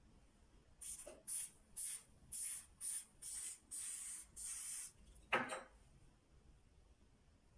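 Aerosol can of Got2b Glued hair spray sprayed in about eight short, quick bursts of hiss, the last few held a little longer, followed by a single sharp knock.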